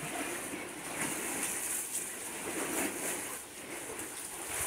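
Small sea waves lapping and washing around pier pilings, a steady rushing hiss with soft swells.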